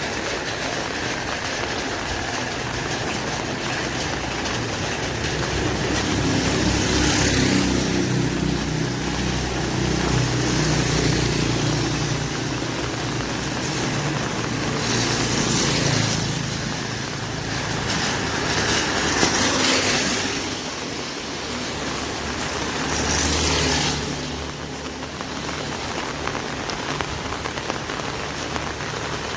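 Rain pattering steadily on an umbrella while vehicles pass on a wet road: three times a swell of tyre hiss rises and fades, and an engine's low hum runs under the first half.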